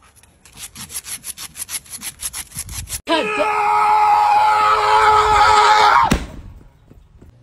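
A dog's claws scraping the concrete sidewalk in quick strokes, about seven a second, as it kicks back with its hind legs. About three seconds in this gives way to a loud held note with many overtones, which cuts off suddenly about three seconds later.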